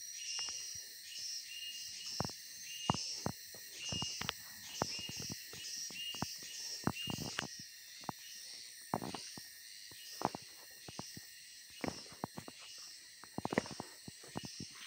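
A dense, steady chorus of tropical forest insects trilling high up, with a short chirp repeated a couple of times a second through the first half. Over it come irregular footsteps and crunches on the muddy leaf-littered trail.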